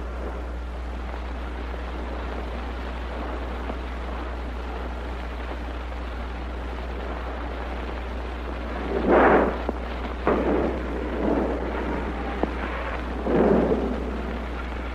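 Steady hiss and low hum of an old 1930 film soundtrack. From about nine seconds in come four short, loud, rough sounds, each about half a second long.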